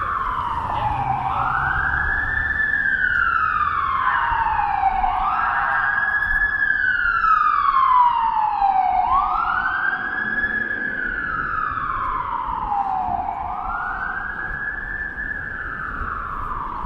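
Emergency vehicle siren sounding a slow wail: each cycle climbs quickly in pitch and then falls over about three seconds, about four cycles in all. It is loudest near the middle and eases a little toward the end.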